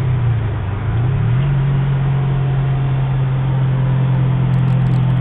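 Subaru WRX turbocharged 2.5-litre flat-four droning through a Subaru SPT 3-inch dual-muffler exhaust, heard from inside the cabin at freeway speed over road noise. The drone dips briefly just before a second in, then rises and holds a steady pitch.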